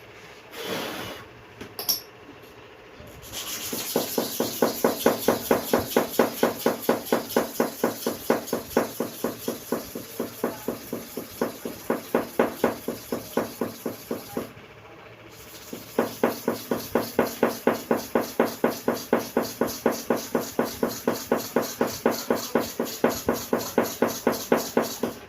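Hair-clipper blade being rubbed back and forth on a sharpening stone, a steady scraping at about three to four strokes a second, with a short break near the middle. A couple of light knocks come before the strokes start.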